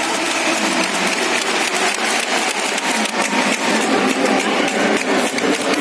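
Hockey arena crowd: a steady din of many voices with a dense, irregular run of sharp claps and knocks throughout.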